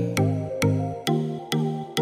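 Background music with a steady beat, about two beats a second, over held low notes and a simple melody.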